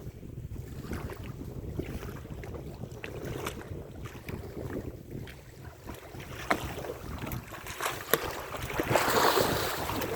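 Wind buffeting the microphone on a boat at sea over a low steady rumble, with a few sharp knocks and a louder rush near the end.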